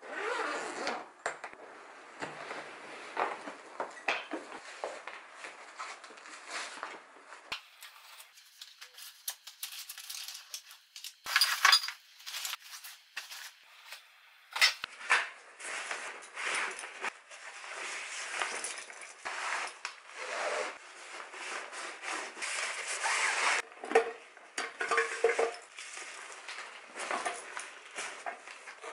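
Camping gear being packed by hand: rustling of nylon bags and stuff sacks, with clinks and clatter of metal camp cookware and knocks against a hard-shell suitcase.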